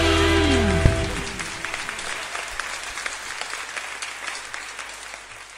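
A live band's final held chord ends on a last hit about a second in. Audience applause follows and dies away steadily.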